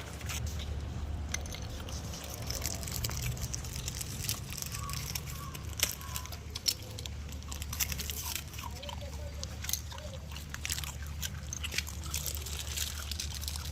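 Puppies suckling: wet smacking and slurping clicks, irregular and continuous, over a steady low hum.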